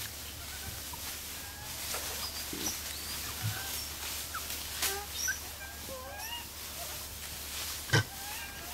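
Scattered short chirping and squeaking animal calls, with a single sharp thump about eight seconds in.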